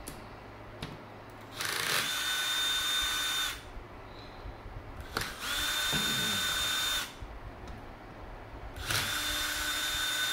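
Cordless drill-driver spinning out the carburetor's air horn bolts in three short runs of about two seconds each, each a steady whine. Quieter pauses fall between them while the bit is moved to the next bolt.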